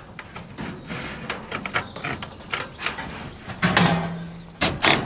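Window trim clicking and rattling as it is handled and pressed into place against the window frame, followed near the end by a few louder knocks of footsteps on the steel roof panels.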